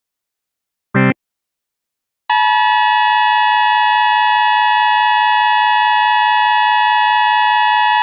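Emergency Alert System alert tones. About a second in comes a short burst of header data tones, the last of a repeated series. Just over two seconds in, the EAS two-tone attention signal (853 and 960 Hz together) starts and holds steady and harsh.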